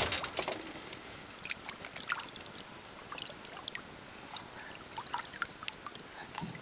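Light splashing and trickling of lake water around a hand and a large fish held in the water beside an aluminium boat hull, the fish being revived before release. A sharper splash comes right at the start, then small scattered splashes and drips.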